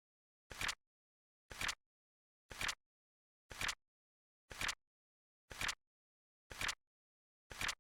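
Flip clock flap sound effect ticking over once a second, a short double clack each time, eight in all, with silence between.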